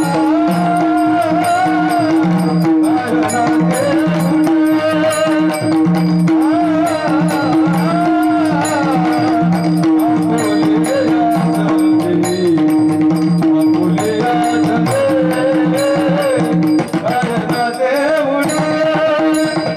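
Warkari devotional bhajan: male voices sing a Marathi abhang melody over a steady drone. A mridang (pakhawaj) plays regular deep strokes, and small hand cymbals (taal) keep a fast, even beat.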